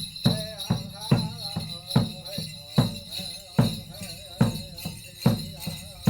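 A man singing over a steady drumbeat, about two and a half beats a second.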